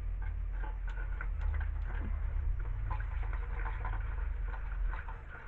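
Gasoline being poured from a can into the fuel tank of a small pressure-washer engine, with scattered small ticks and trickling, over a low steady rumble that drops off about five seconds in.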